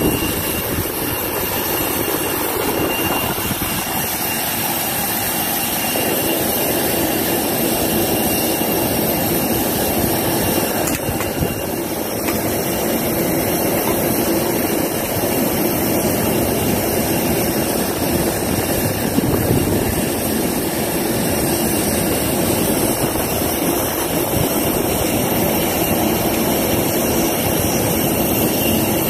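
Steady jet-engine noise: a loud, even rush with a thin high whine running through it.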